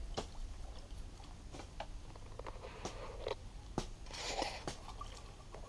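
Sparse light clicks and drips, with a short splashy rustle about four seconds in, as a bamboo-pole lift net is drawn up out of the water and handled.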